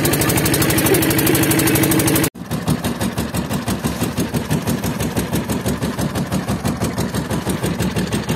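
Small wooden fishing boat's engine running under way with a steady, rapid pulsing beat. The sound cuts out for an instant about two seconds in, then the engine carries on.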